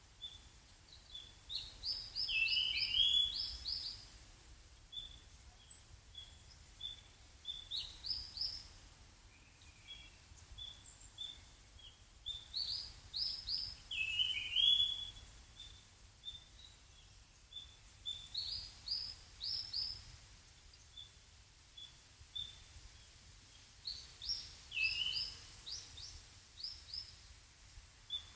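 A small songbird calling, giving short bursts of several quick high notes about every five or six seconds, with single thin notes between them.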